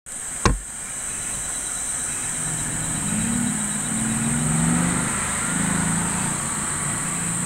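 Steady background noise with a constant high hiss, a sharp click about half a second in, and a faint low wavering hum or murmur through the middle.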